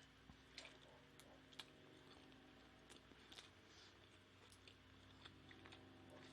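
Near silence: faint room tone with a steady low hum and a few scattered faint clicks.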